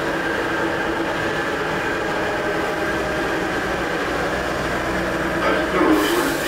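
Steady running noise inside a Moscow Metro Ezh3 track-measuring car, a hum carrying several steady tones. A hiss starts near the end.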